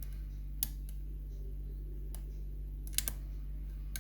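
Sharp metallic clicks of a lock pick working the pins inside an ABS Pioneer lock cylinder, about six of them spaced irregularly, two in quick succession about three seconds in. A steady low hum runs underneath.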